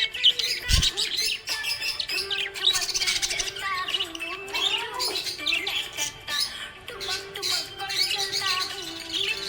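Budgerigars chirping and warbling continuously in quick, high twittering notes, over background music, with a dull thump about a second in.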